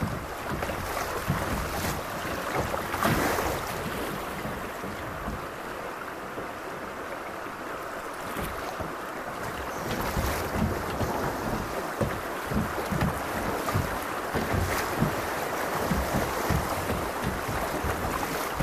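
Creek water rushing and splashing around a kayak, with wind noise on the microphone. From about ten seconds in comes a run of short, dull low thumps.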